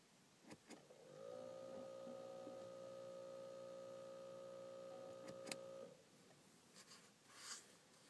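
Ford Mondeo Mk4.5 Convers+ instrument cluster giving off a steady electronic buzz, one even tone. It starts about a second in and cuts off just before six seconds, while the display runs its start-up screens. A couple of light clicks come before the buzz and one sharp click near its end.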